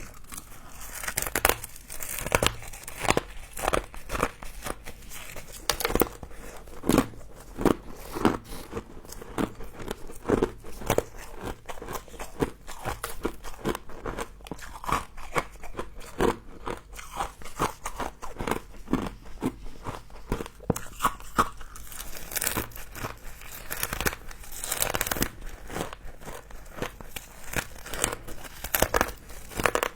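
Close-up crunching and chewing of frost, a dense irregular run of crisp crunches and bites.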